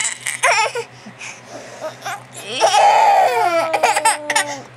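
A baby laughing in short bursts, then a longer drawn-out laugh that trails off lower in pitch.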